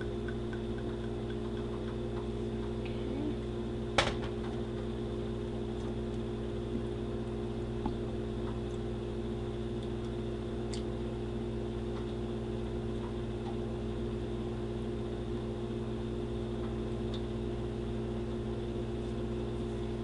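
A steady low electrical hum made of a few fixed tones, with one sharp knock about four seconds in and a couple of faint ticks later.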